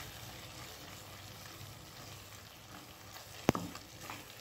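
Onion and spice masala frying in oil in a kadhai, with a faint steady sizzle as a spatula stirs it. A single sharp clack of the spatula against the pan comes about three and a half seconds in, with a few lighter scrapes around it.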